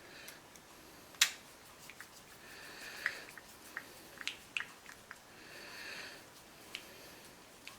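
Small plastic and metal model-kit parts being handled and fitted, with a string of sharp clicks, the loudest about a second in, and two stretches of soft scraping between them.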